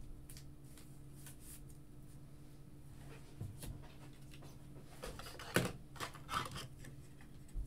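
Quiet handling of a trading card and a clear plastic card case on a tabletop: a few light clicks and rustles, the sharpest about five and a half seconds in, over a steady low hum.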